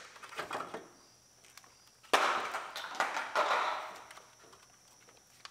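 Hard plastic fuse-box parts and wiring being handled: a few light clicks, then about two seconds in a sudden scraping plastic rattle that fades over about two seconds.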